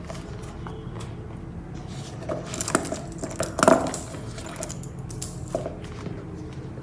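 A handbag being handled, with its metal hardware giving a series of light clicks and clinks, loudest and most frequent a little before the middle.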